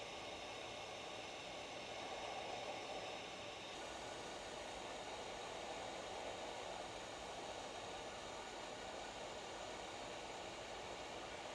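Hot-air rework station blowing a steady stream of hot air with a fan hiss, reflowing solder paste under surface-mount LEDs on a circuit board. The top of the hiss drops slightly about four seconds in.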